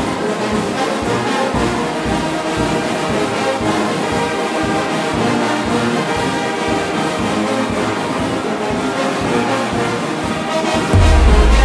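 Brass band music, a brass fanfare over a beat. About eleven seconds in, a heavy deep bass comes in and the music gets louder.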